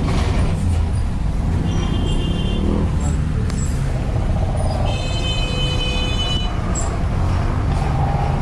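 Old city bus's engine running as it creeps through traffic, heard from inside the passenger cabin as a steady low rumble. Two short high-pitched tones cut through, about two seconds in and a longer one around five seconds in.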